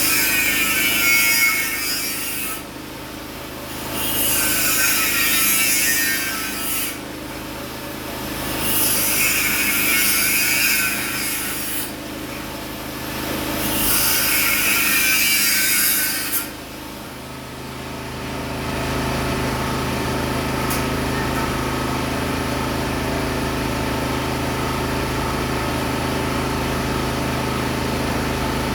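A power tool cutting into material in four bursts of about three seconds each, over a steady motor hum. The tool stops about two-thirds of the way in, and the hum carries on alone.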